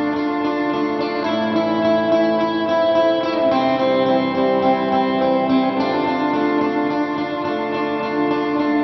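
Background music led by guitar, slow sustained chords changing every second or two.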